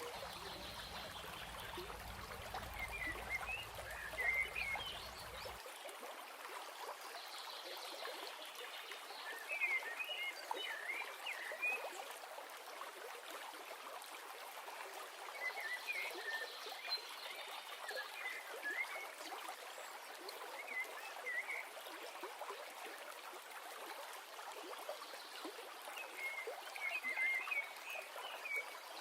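Steady rush of running water, like a stream, with clusters of short chirping animal calls every few seconds.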